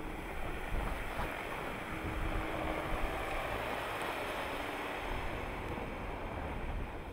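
Jeep Grand Cherokee driving over packed snow and passing close by, its engine hum and tyre noise swelling in the middle, with wind buffeting the microphone.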